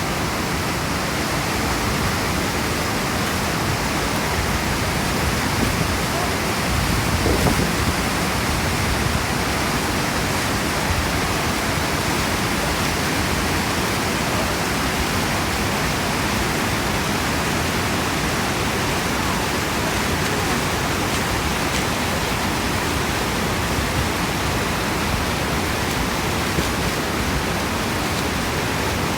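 Waterfall pouring, a steady, even rush of falling water that does not let up.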